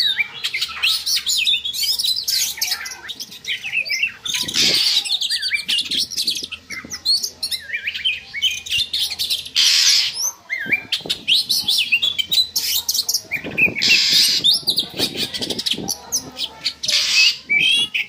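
Oriental magpie-robin (kacer) singing a rapid, varied song of quick chirps and short sweeping whistles, broken by a few short harsh bursts. This is breeding-condition song, used as a lure to bring a kept bird into breeding mood.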